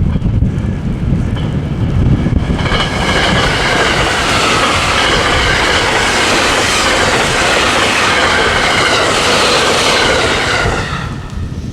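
A train passing close by, its wheels clattering on the rails with a high ringing whine over the noise. It comes in about two and a half seconds in and dies away near the end. Before it arrives, wind buffets the microphone.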